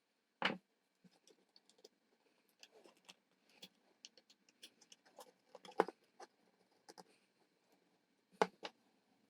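Scattered light clicks and taps of small parts and hand tools being handled, with three louder knocks: about half a second in, near the middle, and near the end.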